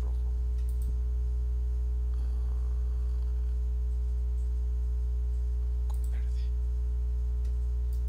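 Steady low electrical mains hum, with a few faint mouse clicks.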